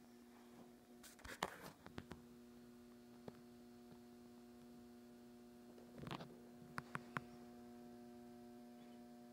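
Near silence: a faint steady electrical hum, with a few soft clicks and rustles of handling.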